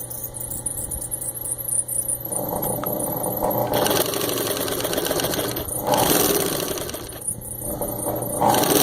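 Singer 114w103 industrial chain-stitch embroidery sewing machine stitching under its motor, with a steady low motor hum underneath. It speeds up in several louder surges as the pedal is worked, running fast.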